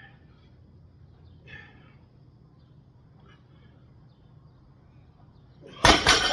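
An 80 kg loaded barbell set down on the floor near the end with one loud crash of plates. Before it, a couple of short, faint exhales from the lifter.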